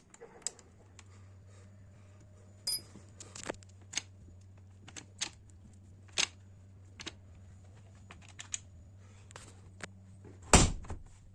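Scattered light clicks and taps, irregularly spaced, over a low steady hum, with one much louder knock about ten and a half seconds in.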